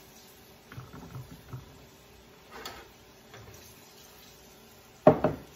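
Deep fryer oil bubbling faintly, with small handling knocks at the counter and a sharp knock near the end that is the loudest sound.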